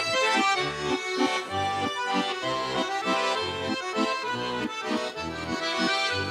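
Russian garmon (button accordion) playing the instrumental introduction to a folk song: a lively melody over a steady beat of bass notes and chords.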